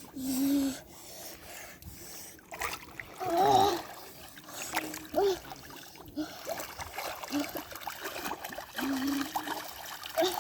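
Pond water splashing and trickling, with a few short vocal exclamations, the loudest about three and a half seconds in.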